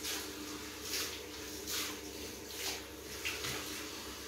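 Hands scrubbing a wet dog's fur around its neck and collar, a wet rubbing swish about once a second, over a steady low hum.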